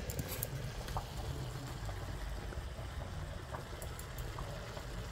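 Quiet kitchen background: a steady low hum with a few faint, light clicks of a knife on a cutting board and pan.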